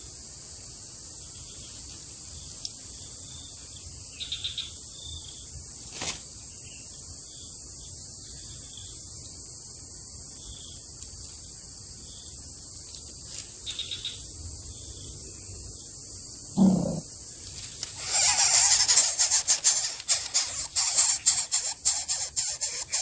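Dry palm-frond nest material rattling and rustling loudly as an adult coucal lands on the nest to feed its chicks, starting about three-quarters of the way in. Before that there is only a steady low hiss, with a short falling call-like sound just before the rustling starts.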